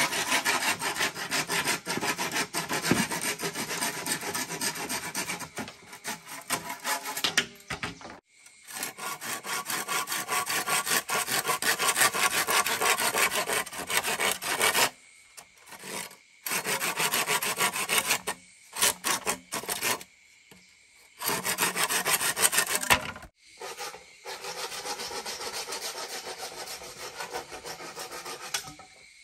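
A hand tool rasping against bamboo in rapid strokes. The work comes in runs of a few seconds, broken by short pauses.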